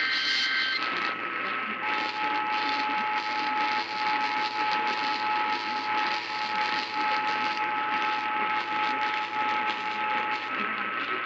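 Emergency Alert System tones received on AM radio. The last SAME data header burst ends within the first second. About two seconds in, the steady EAS attention tone starts, sounds for about eight seconds and cuts off. This announces a new severe thunderstorm warning. It all sits over crackling AM static and a steady higher whistle.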